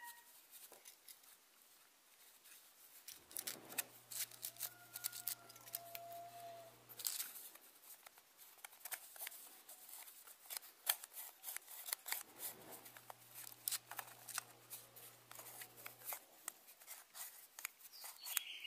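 Plastic parts of a Canon EF 50mm f/1.8 II lens being handled and worked into place by hand: a faint, irregular run of many small clicks and ticks.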